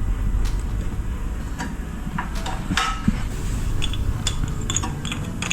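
Scattered metallic clicks and clinks of hand tools and motorcycle parts being handled during reassembly, at irregular intervals over a low steady rumble.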